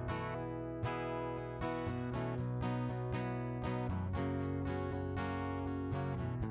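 Acoustic guitar strummed in a steady rhythm, an instrumental stretch between sung lines of a live Americana song, with the chord changing a couple of times.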